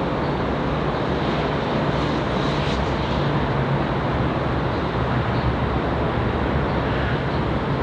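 Seoul Line 4 electric commuter train running: a steady rush of wheel and running noise with a low, even hum underneath.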